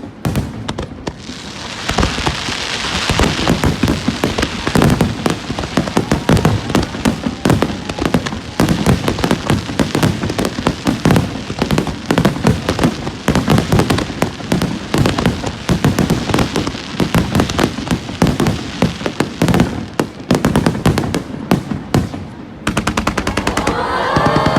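Fireworks display: a dense, continuous barrage of bangs and crackles, many bursts a second, for about twenty seconds. Near the end the barrage stops briefly and a sound with wavering pitches takes over.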